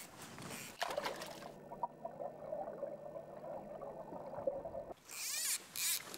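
Muffled gurgling of water heard underwater in a stony river. About five seconds in it gives way abruptly to a brighter rushing hiss of water at the surface.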